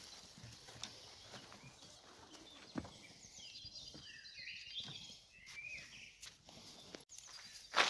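Small birds chirping and twittering, busiest in the middle, over faint scattered footsteps and rustles on the forest floor, with one sharp snap near the end.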